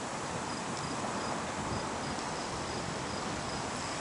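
A cricket chirping steadily, short high chirps repeating at an even rate of about two to three a second, over a steady background hiss.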